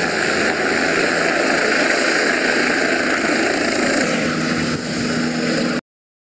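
Helicopter lifting off, its rotor and turbine engine running steadily at a loud, even level, then cutting off abruptly near the end.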